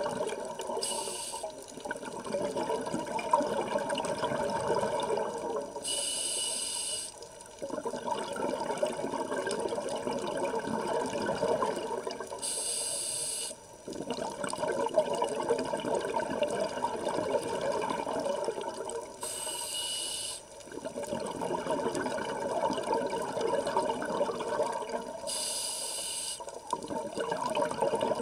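A scuba diver breathing through a regulator underwater. Each breath is a short hiss on the inhale, followed by several seconds of gurgling exhaled bubbles. The cycle repeats five times, about every six to seven seconds.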